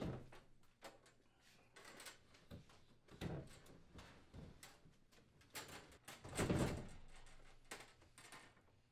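Double wall oven being slid and pushed into its cabinet opening: scattered soft knocks and scrapes, with the loudest scraping bump lasting about a second, some six and a half seconds in.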